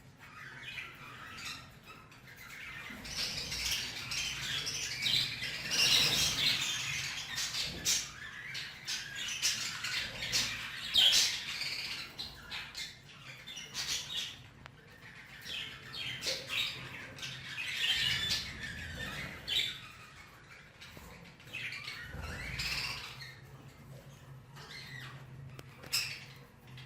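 Budgerigars squawking and chirping in raspy runs that come in two long spells, with sharp clicks scattered among the calls.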